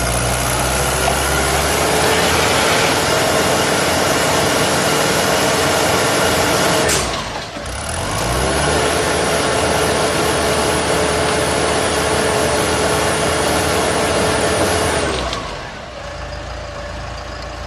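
Diesel engine of a self-loading concrete mixer running steadily under load. It eases off and picks up again about seven seconds in, then drops to a quieter, lower run near the end.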